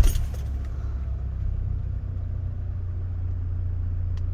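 Toyota Land Cruiser engine just started, dropping from its start-up surge into a steady low idle.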